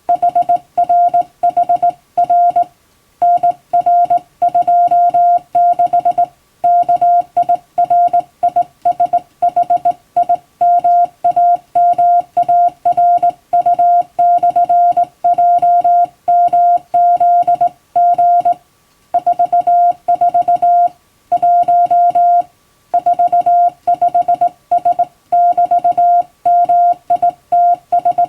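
Hand-keyed Morse code: a steady tone switched on and off in dots and dashes, sending English-language telegram text. Short silent gaps fall between letter groups, with longer breaks about three, six, eighteen and twenty-two seconds in.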